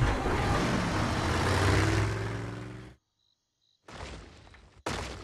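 Cartoon police SUV engine and a rush of driving noise that fades out over about three seconds and cuts off. After a short silence a quieter hiss comes in, with a sudden loud burst near the end.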